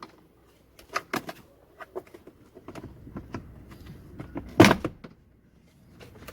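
Plastic clicks and knocks of a Subaru Impreza WRX STI glove box drawer being pulled free of its two lower clips, with the loudest clunk about four and a half seconds in.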